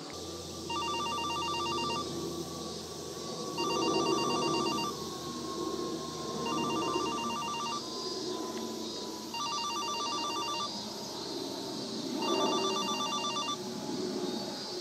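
Telephone ringing: five rings about every three seconds, each a rapid trill of warbling tones, over a faint tone that slowly falls in pitch.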